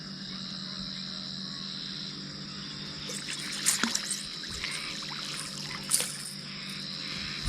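Water splashing several times as a hooked redfin thrashes at the surface beside the boat, starting about three seconds in, over a steady high chirring of insects.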